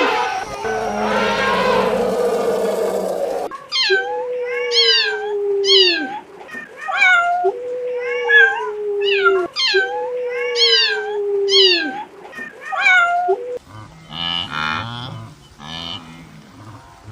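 A series of animal calls: a noisy cry, then about ten short pitched cries repeated in quick succession, each falling in pitch, and lower pulsing calls near the end.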